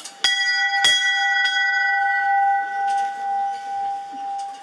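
Small bronze bell struck twice in quick succession and once more lightly, each strike followed by a long, steady ringing tone that slowly fades.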